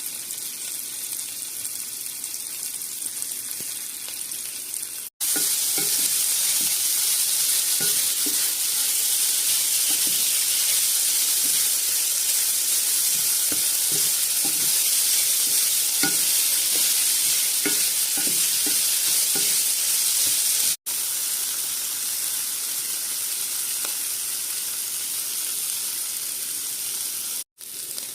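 Food sizzling steadily in a hot frying pan, with short knocks of a utensil against the pan as it is stirred, mostly in the louder middle stretch. The sizzle cuts out abruptly three times and resumes at a different loudness.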